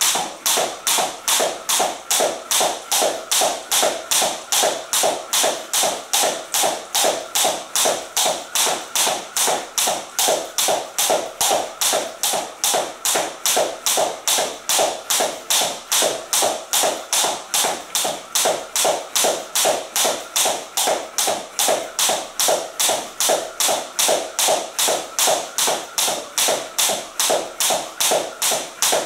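Jump rope skipped with high knees: the rope and feet tap the floor in a steady, even rhythm of about three taps a second.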